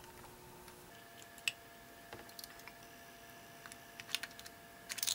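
Faint, scattered small clicks and taps as a screwdriver backs out the grip screw of a Colt Single Action Army revolver and the grips are handled. The sharpest click comes about a second and a half in, with a quick cluster near the end.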